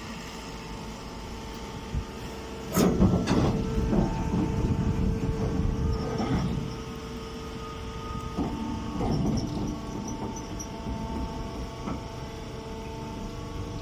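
Baler machine running: a steady motor hum with loud clanks and rattles about three seconds in and again around nine seconds.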